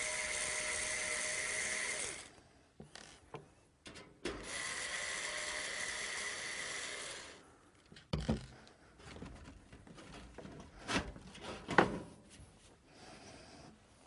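Power screwdriver running in two bursts, about two and then three seconds long, backing out a PC case's side-panel screws. Scattered clicks and knocks follow in the second half.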